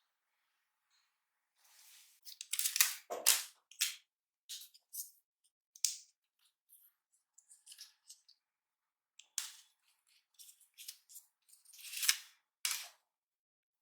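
Paper and plastic packaging being handled and unwrapped: irregular crinkling, tearing and crackling with sharp clicks, in bursts that start about two seconds in and are loudest near the start and again near the end.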